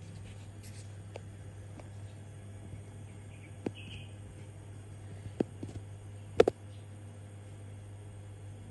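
A steady low hum with a few short, sharp clicks, the loudest about six and a half seconds in.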